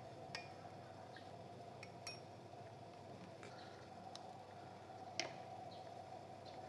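A few light clicks and clinks of metal espresso-press parts and a small scale being handled and set in place on a manual lever press, the loudest about five seconds in, over a faint steady background hum.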